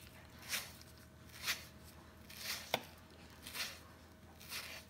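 A chef's knife scoring a mango half crosswise on a wooden cutting board, with soft cuts coming about once a second and one sharper tick near the middle.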